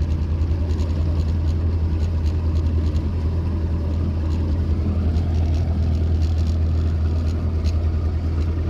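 Boat motor running steadily, a constant low hum with a fast, even pulse.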